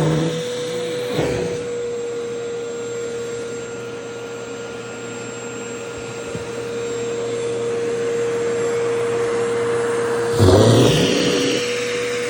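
Vacuum cleaner running with a steady whine, sucking at the fabric of a skirt. Near the end the sound briefly surges louder, its pitch shifting, with a smaller change about a second in.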